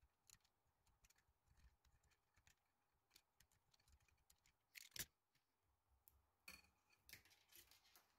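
Faint clicks and scrapes from plastic filament being handled and trimmed with a small cutter. The loudest is a sharp double click about five seconds in, followed by a few lighter clicks near the end.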